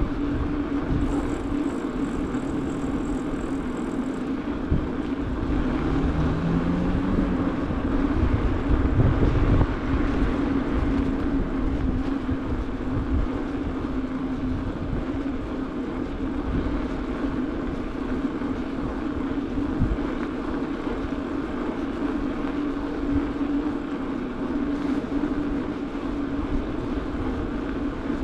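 Bicycle riding along an asphalt street: tyres rolling with a steady hum, and wind rumbling on the microphone in gusts.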